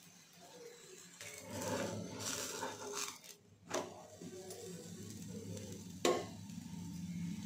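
Methi paratha being turned over on a hot nonstick tawa: a stretch of crackling sizzle, then two sharp knocks, one about a third of the way in and one near the end, as the flatbread and utensil meet the pan.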